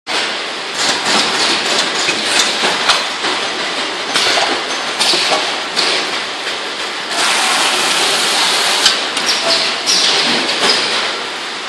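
Automatic cartoning line running: the case packer, tape case sealer and roller conveyors clatter and rattle steadily, with frequent clicks and knocks. A hiss rises over the machinery about seven seconds in and lasts just under two seconds.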